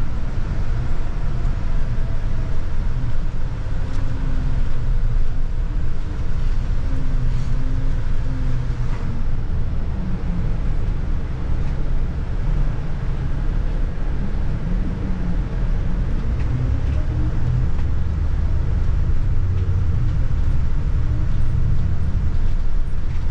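Double-decker bus in motion, heard from inside on the upper deck: a steady low engine drone and road rumble, with a faint whine that rises and falls in pitch.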